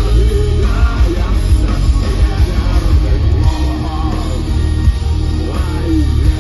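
Loud live rock band playing, with guitars, heavy bass and a voice singing over them.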